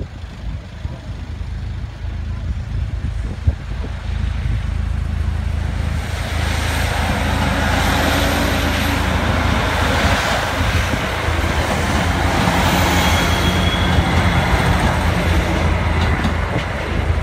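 Diesel passenger train passing over a level crossing: engine drone and wheel rumble build up about five seconds in and stay loud for about ten seconds, easing slightly near the end.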